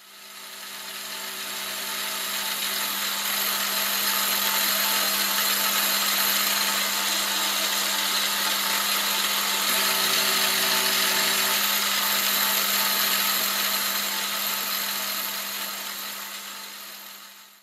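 Milling machine spindle running with an end mill cutting a brass workpiece: a steady whirring hiss over a low motor hum, fading in over the first few seconds and out near the end.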